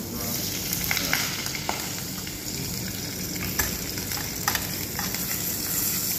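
Chicken pieces searing in hot oil in a stainless steel pan, being browned golden: a steady sizzle with several sharp pops of spattering fat.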